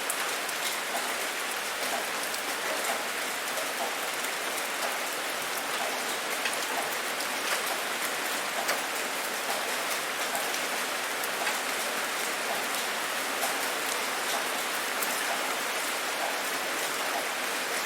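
Steady rain falling on a surface, with many individual drops pattering clearly over an even hiss.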